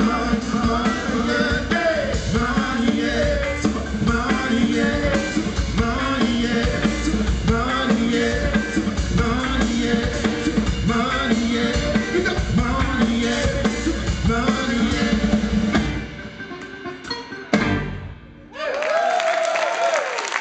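Live band of kora, electric guitar, bass and drum kit playing a rhythmic song with sung vocals. The music thins out about four seconds before the end, with a single sharp hit and a brief pause before another pitched sound comes in.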